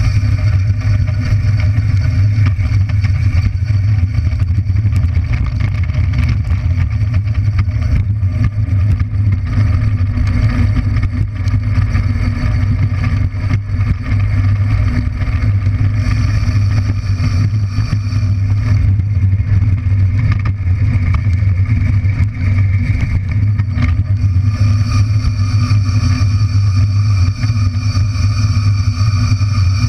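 Drift trike rolling fast on asphalt: a loud, steady rumble from its hard plastic-sleeved rear wheels and front tyre on the road, picked up through a camera mounted on the front fork.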